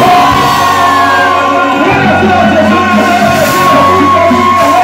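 A live band playing loudly: long held notes over a steady bass line, with shouting voices over the music.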